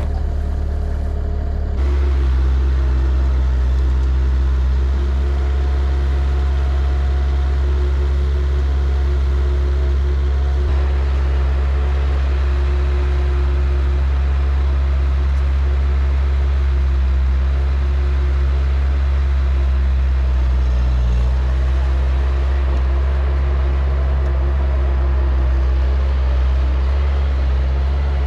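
A vehicle engine running steadily with a deep drone while driving, towing a no-till drill. It steps up in level about two seconds in and otherwise holds steady.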